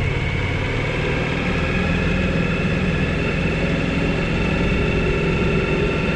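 Suzuki V-Strom 1000's V-twin engine running steadily while riding a dirt road.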